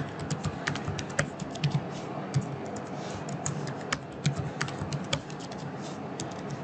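Typing on a computer keyboard: a run of irregular keystroke clicks, thinning out about five seconds in.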